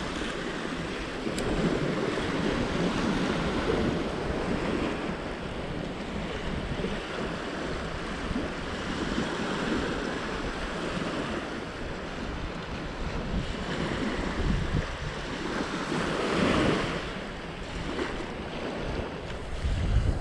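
Small waves breaking and washing up on a sandy beach, rising and falling, with wind buffeting the microphone. One wash is louder about two-thirds of the way through.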